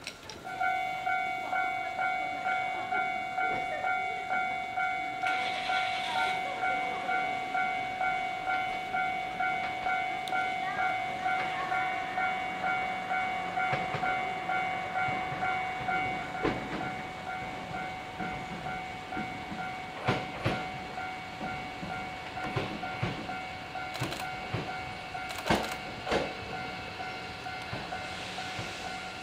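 An electronic warning bell rings steadily at about two strokes a second. From about halfway through, a Hankyu 1000 series electric train draws near and rolls in, its wheels clicking and knocking over the rail joints.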